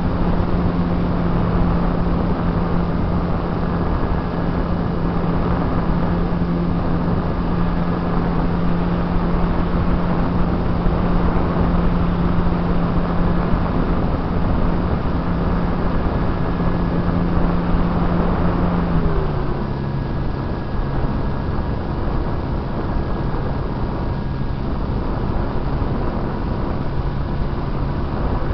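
RC plane's motor and propeller running steadily, heard from a camera on the plane with heavy wind rush. About two-thirds of the way through, the motor's pitch drops a step as the throttle is eased back.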